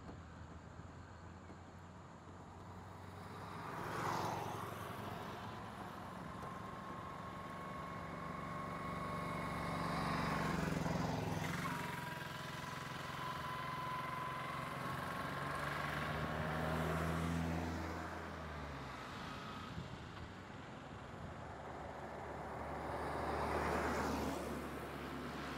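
Road vehicles driving past one after another, about four pass-bys, each engine and tyre noise swelling and fading as it goes by. An engine whine is held for a few seconds around the middle.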